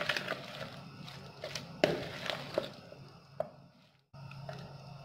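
Metal spoon stirring thick gram-flour batter with potato and onion pieces in a plastic bowl: irregular clicks and scrapes of the spoon against the bowl. The sound cuts out for a moment near the end.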